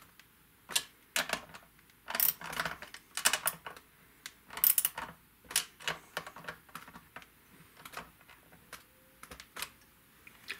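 Small wrench clicking and scraping against the hex bushing nuts of Guyker locking tuners as they are tightened down on a guitar headstock: irregular light metallic clicks in short clusters.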